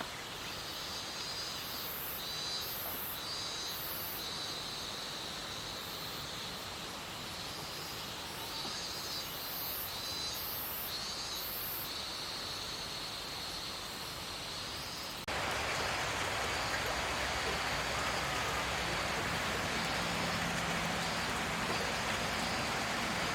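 Outdoor ambience: a steady hiss with repeated high chirping animal calls, then about 15 seconds in a sudden cut to a louder, even rushing noise.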